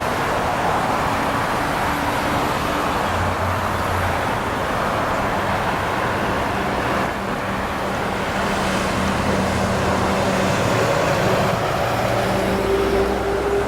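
Steady motor-vehicle noise, engine and road rumble with a hiss, cutting in suddenly from silence at the start.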